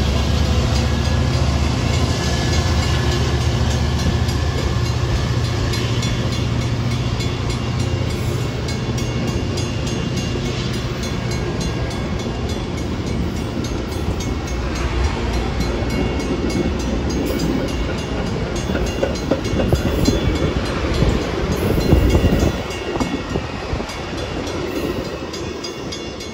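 Metra bilevel commuter train passing over a grade crossing: a heavy diesel rumble that fades over the first half, then the steady rumble and clatter of the cars' wheels on the rails, with a louder burst near the end before the sound falls away as the train leaves. The crossing bell rings steadily throughout.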